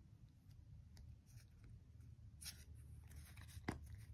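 Near silence with faint, brief rustles of a stack of Pokémon trading cards being handled, the cards sliding against one another, clearest about two and a half seconds in and again near the end.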